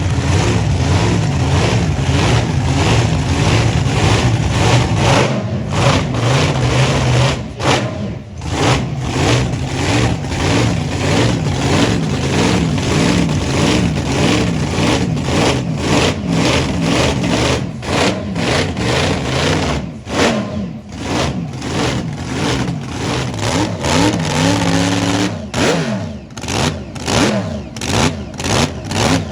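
A loud car engine running and being revved, its pitch rising and falling.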